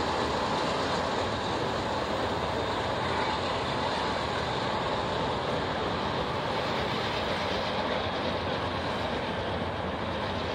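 Norfolk Southern mixed freight train's cars rolling past, wheels running steadily on the rails.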